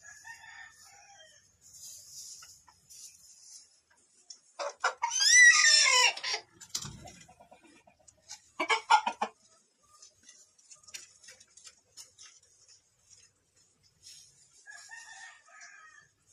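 A rooster crowing once, a call of about two seconds that drops in pitch at the end, followed a few seconds later by a short loud burst of clucking.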